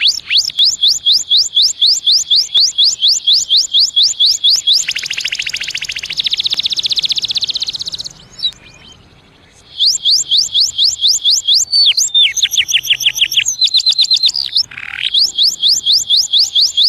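Canary singing: long rolls of quick, rising whistled notes, about ten a second, with a denser, buzzier roll in the middle. The song breaks off briefly about eight seconds in, then resumes with rolls at higher and lower pitches.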